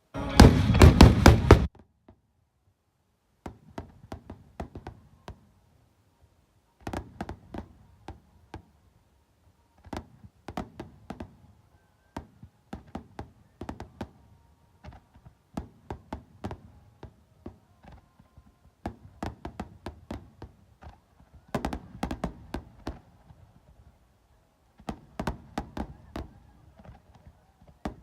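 Fireworks bursting with music for about the first second and a half, cutting off suddenly; then irregular clusters of small knocks and taps for the rest of the time.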